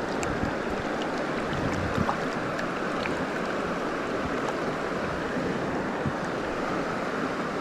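Steady rush of a trout stream's running water.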